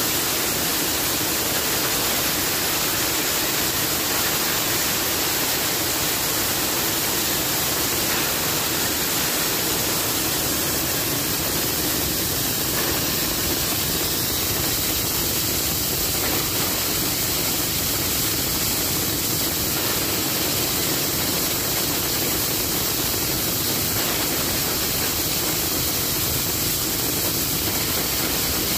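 Petrol-engine-driven chopper-grinder running steadily under load, making a steady, dense rushing noise as its blades grind the material fed into it. It is powered by a 6.5 HP single-cylinder Matrik engine.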